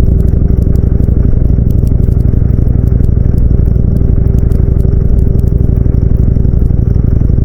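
Harley-Davidson V-twin motorcycle engine running at a steady low speed with an even, rapid pulsing beat.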